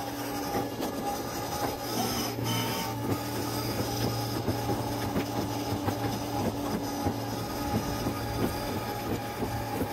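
A 12V electric ride-on toy car driving along, its drive motors and gearboxes giving a steady hum. Its hard plastic wheels rattle and click over the concrete sidewalk.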